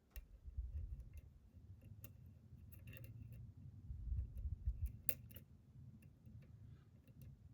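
Scattered small clicks of a lock pick working the pins of a pin-tumbler lock, over a low rumble of the lock being handled.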